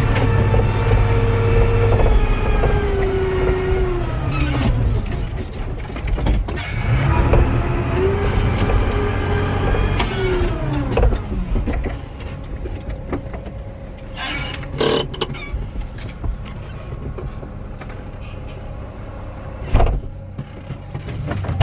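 New Holland 7840 tractor's diesel engine running under the cab, with a whine that drops in pitch as the revs fall, twice. It then settles to a steady idle, broken by a few sharp knocks and clunks.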